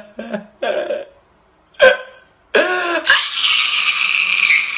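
Short, hiccup-like vocal sounds from a person, each a fraction of a second, then from about three seconds in a steady hissing noise.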